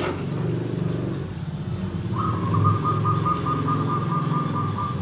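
Audio played from a phone through a homemade cardboard Bluetooth speaker built on a PAM8403 amplifier kit: a low rumbling sound, with a rapid beeping tone of about four to five beeps a second joining about two seconds in.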